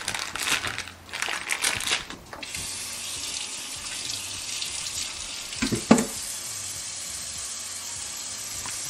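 Plastic packaging crinkling as it is pulled off frozen beef short ribs. Then the kitchen faucet runs steadily as the frozen ribs are rinsed under it, with a single dull knock about six seconds in.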